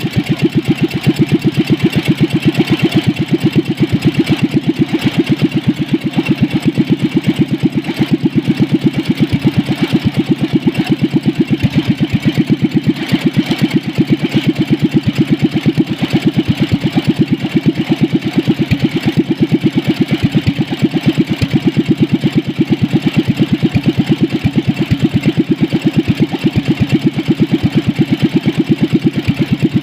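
Diesel engine converted to petrol, with a carburettor and CDI spark ignition, running steadily at an even, rapid beat that is meant to sound like an old British motorcycle.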